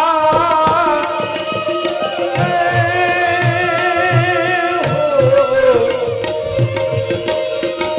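A man singing a Gujarati devotional folk song in long, drawn-out phrases with a wavering pitch, accompanied by tabla beats.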